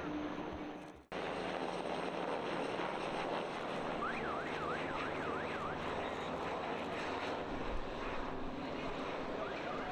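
Steady rushing aircraft noise at an airshow, broken by an abrupt cut about a second in. Midway a short warbling whistle rises and falls about five times over the noise.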